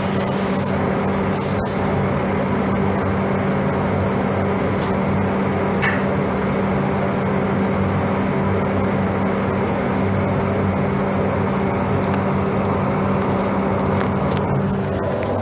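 Paint spray booth's ventilation fans running: a steady mechanical drone with a constant low hum and a high airy hiss.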